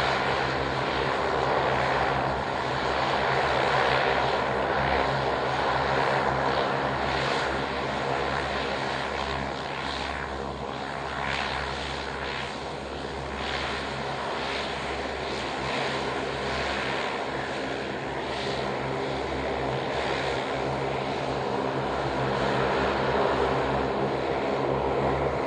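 Twin turboprop engines of a Saab 340 running at low taxi power, a steady propeller drone with even low tones, as the aircraft rolls onto the runway to line up.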